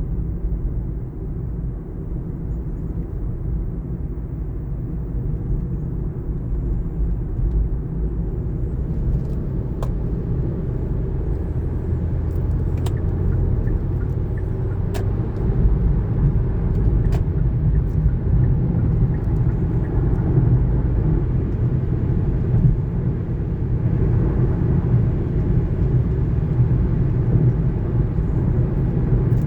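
2019 Kia Niro on the move: a steady low rumble of road and running noise that slowly grows louder, with a few sharp clicks in the middle.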